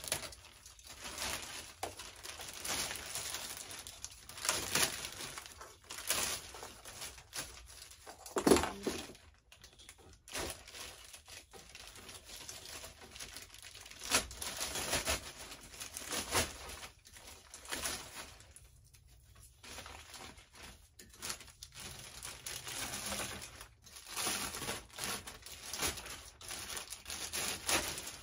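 Plastic wrap crinkling and rustling in irregular bursts, with some tearing, as it is pulled and torn off a folded metal canopy frame.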